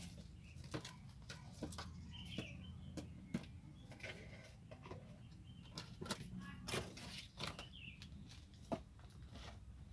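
Faint rustling, scratching and scattered small clicks as young kittens move about among broom straws, a plastic tarp and rubble. A couple of faint high chirps come about two seconds in and again near the end.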